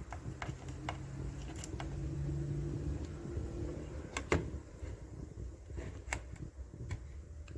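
Scattered light clicks and taps from handling a cordless tool battery and meter while setting up a voltage check, with a faint low hum for the first few seconds.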